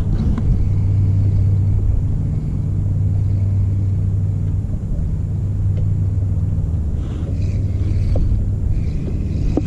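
A steady low motor rumble with a constant hum, running evenly without revving.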